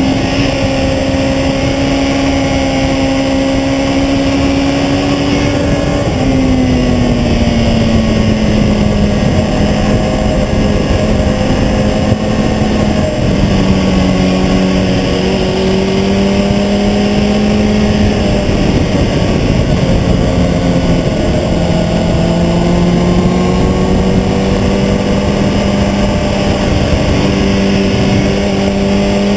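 Sport motorcycle engine running hard on a race track, heard from low on the front fork with wind and road noise; its pitch drops about six seconds in, then rises and falls slowly with throttle through the corners.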